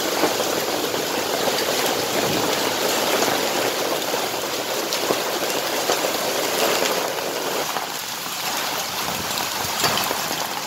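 Hailstorm: hailstones and rain pelting down, a dense steady patter of countless small hits on the street and ledges.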